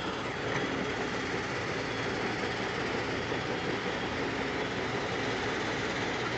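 Heavy diesel mining machinery running steadily, an even engine noise with no change in speed.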